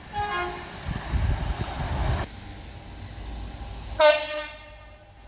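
A UK train horn gives a short two-tone blast, high note then low, followed by the heavy rumble of the train, which cuts off suddenly. About four seconds in, a horn sounds one loud, sharp note that fades within a second.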